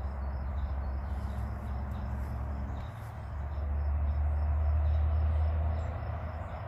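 A low, steady mechanical hum that grows louder about halfway through and then eases off, with faint high chirping over it.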